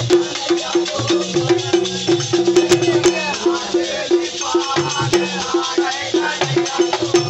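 Men singing a Holi faag folk song together, accompanied by hand-played dholak drums beating a fast, even rhythm and clacking wooden kartal clappers.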